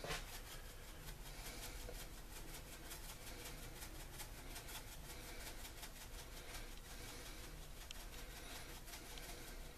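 Black pepper shaker being shaken over a casserole: a faint, quick run of light ticks.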